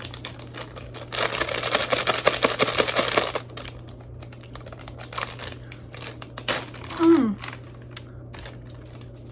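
Plastic zip-top bag crinkling loudly for about two seconds as cheese is put into it, followed by scattered small rustles and clicks. A brief voice sound with falling pitch comes about seven seconds in.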